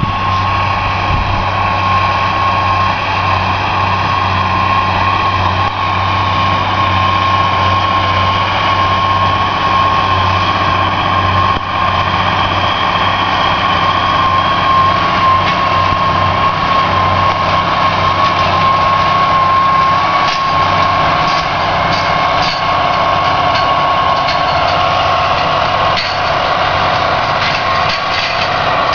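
New Holland tractor's diesel engine running steadily under load while pulling a soil cultivator, with a steady high whine over the low engine drone.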